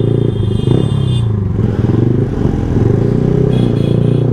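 Yamaha R15M's single-cylinder engine running on the move, its revs rising and falling. A high-pitched vehicle horn sounds twice, in the first second or so and again near the end.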